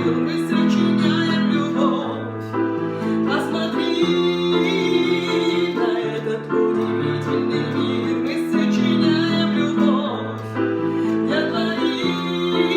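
A pop song with keyboard accompaniment and a sung melody, its chords changing about every two seconds.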